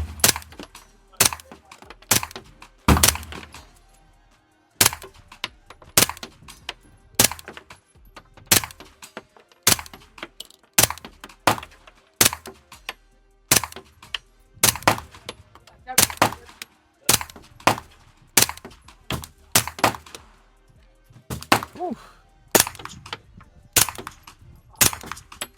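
Suppressed 9mm shots through a HUXWRX Flow 36 Ti titanium suppressor, fired with 115-grain ammunition in quick strings about a second apart, with a short pause about four seconds in.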